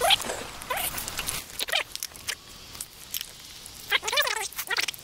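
A dog whining in several high, wavering whines, the longest and loudest about four seconds in.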